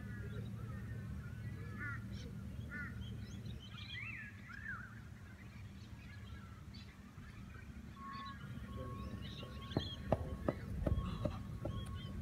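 Outdoor birds calling with short chirping calls through the first half. From about ten seconds in, a run of thuds from a person's footsteps running across grass, growing louder as they come closer.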